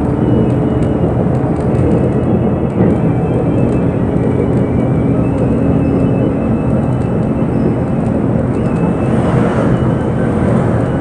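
Bus running, heard from inside the cabin: a steady low engine and road drone with light rattling.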